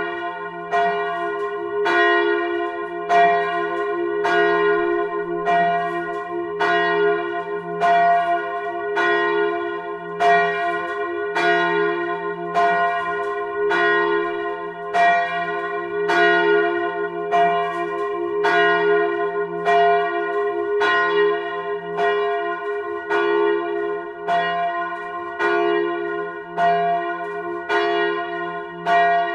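A 1948 Petit & Fritsen bronze church bell, the F1 bell, swinging and ringing alone. The clapper strikes it at an even, steady rhythm, and the bell's hum and partials ring on between strokes.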